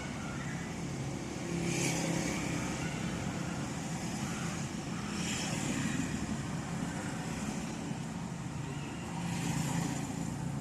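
Steady low engine-like hum, with three swells of hiss about two, five and ten seconds in.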